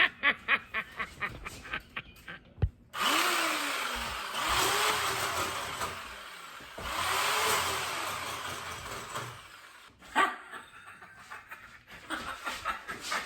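Rapid knocking on the door, then a power tool runs for about seven seconds, its pitch rising and falling as it works, before the rapid knocking resumes near the end.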